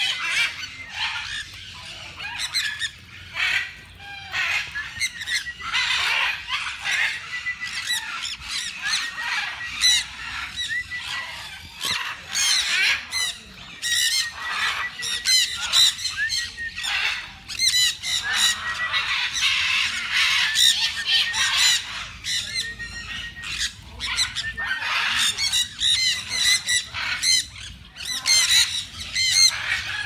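A large flock of sun conures calling together, many high-pitched calls overlapping without a break and swelling and ebbing in loudness.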